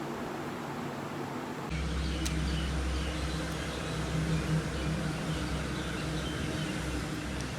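Outdoor ambience: after a sudden change about 1.7 s in, a steady low hum like a running motor or traffic, with faint bird chirps over it.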